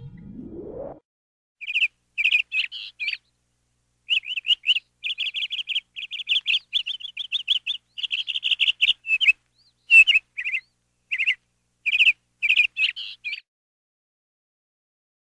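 Canary singing in short phrases of rapid, high trills and chirps, broken by abrupt silent gaps, with a short rising sweep in the first second before the song begins.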